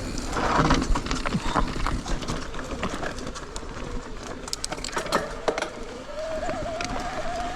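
Mountain bike riding down a rocky trail: a steady rush of rolling noise with frequent sharp rattles and knocks as the bike goes over rocks. From about five seconds in there is also a wavering, slowly rising whine.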